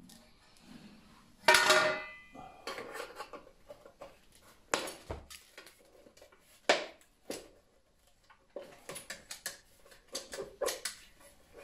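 An electrical box being dismantled from a wall by hand and with tools. A loud clank about a second and a half in rings briefly, followed by sharp single clicks and then a run of small rattles and clicks near the end.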